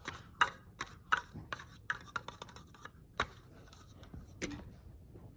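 Small toy cups being knocked and clicked together by hand: a run of sharp, irregular taps, several a second for the first couple of seconds, then two more spaced-out knocks.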